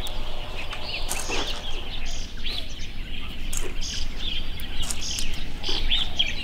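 Wild birds chirping outdoors, many short rising and falling calls one after another, over a steady low background noise.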